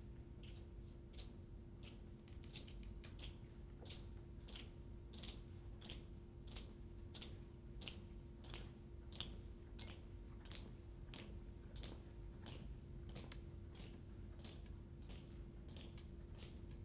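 Faint footsteps of an honor guard colour team marching on a hard floor: sharp clicks, about two a second, slightly uneven, over a steady low hum.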